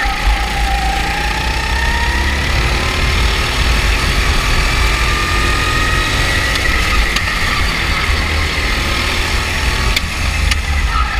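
Go-kart engines running, their whine gliding slowly up and down in pitch as they speed up and slow down, over a steady deep rumble.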